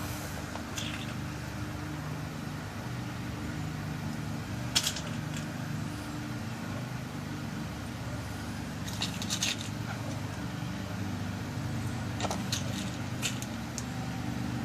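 Scattered light clicks of small lock pins being dropped into a pin-tumbler lock cylinder as it is loaded with new pins for a new key, a few at a time with pauses between, over a steady low hum.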